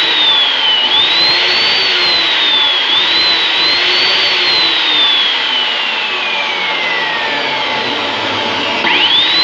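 Electric metal cut-off saw (abrasive chop saw) running under no load after repair of its on/off switch: the motor whine wavers in pitch, then slides steadily down for a few seconds as it slows. Near the end it rises sharply again as the motor is restarted.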